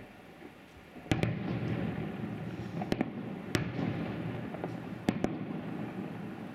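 Aerial firework shells bursting at a distance: about six sharp bangs, often in quick pairs, starting about a second in, with a rolling rumble between them that dies away near the end.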